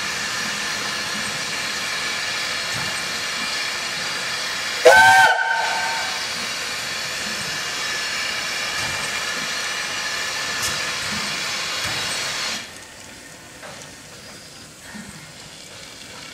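Steam locomotive No. 70000 Britannia, a BR Standard Class 7 Pacific, standing in steam with a steady hiss of escaping steam. About five seconds in there is a short, loud whistle blast that rises briefly in pitch, and the hiss cuts off suddenly about twelve seconds in.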